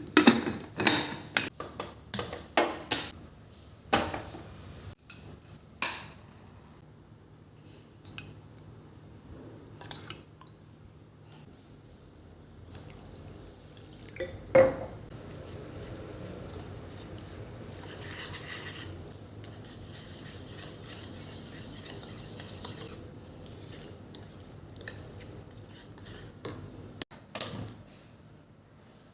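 Kitchen utensils and metal pots clinking and clattering, several sharp knocks in a row, then a steady hiss for much of the rest, broken by a single knock and two more clatters near the end.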